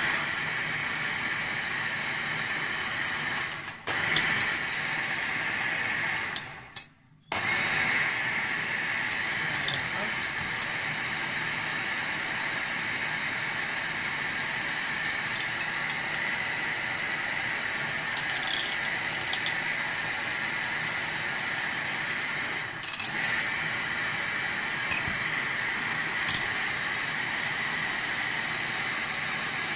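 Electric hand mixer running steadily, its wire beaters whipping egg whites to stiff peaks in a ceramic bowl. It stops for about a second around seven seconds in, then runs on evenly.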